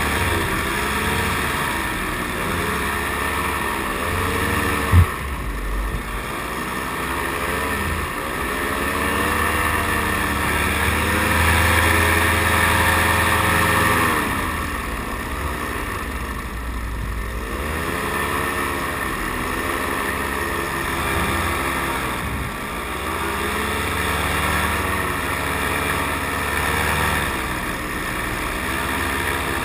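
Paramotor engine and propeller running close by, its pitch rising and falling again and again as the throttle is worked, over a steady rush of air. One sharp thump about five seconds in.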